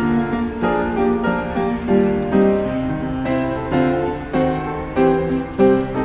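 Instrumental background music: a piano playing a steady run of notes over held chords.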